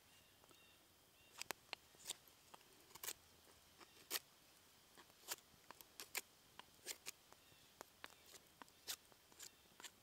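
Knife whittling a wooden stick into a skewer: irregular, sharp snicks of the blade shaving the wood.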